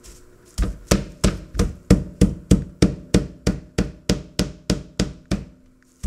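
Meat tenderizing mallet pounding alligator meat under plastic wrap on a plastic cutting board: a steady run of blows, about three a second, pausing briefly near the end.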